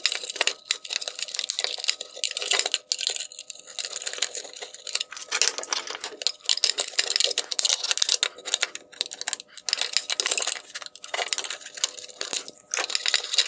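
Plastic welds in a Tesla Model 3 LED tail light housing being pried apart with a tool: a rapid, irregular run of sharp clicks, cracks and scraping of hard plastic.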